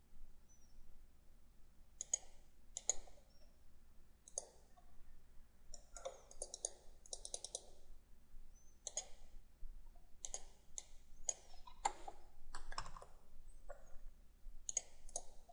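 Faint computer mouse clicks at irregular intervals, some coming in quick pairs or short runs.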